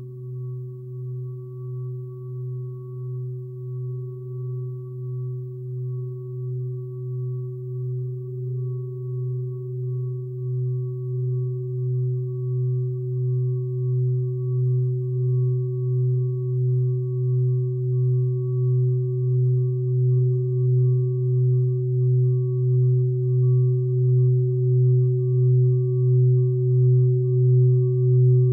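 Minimal drone music of steady, pure sine-like tones held without change. The lowest tone pulses slowly and evenly, and the whole drone grows gradually louder.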